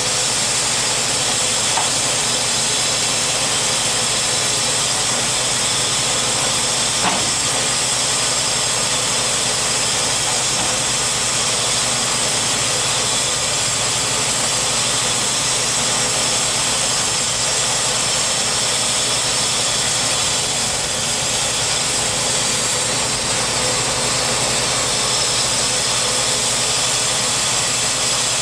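Portable bandsaw mill's gasoline engine running steadily, with a constant high hiss over it.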